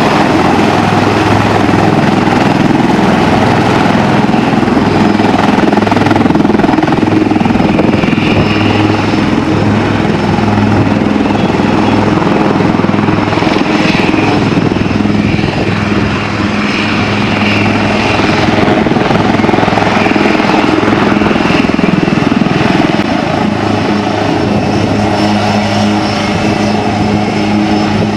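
HAL Light Combat Helicopter's twin turboshaft engines and rotors running on the ground: a loud, steady drone with a low hum and a high turbine whine.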